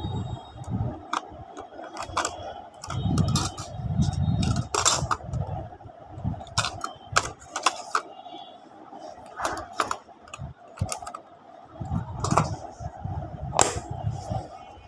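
Plastic set squares, a protractor and other instruments clicking and clattering against a metal tin geometry box as they are packed in and handled, with a steady faint hum beneath. A sharp click near the end.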